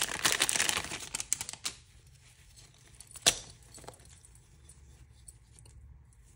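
Packaging crinkling and rustling as items are handled, stopping about a second and a half in. About three seconds in there is a single sharp click, then a few faint ticks.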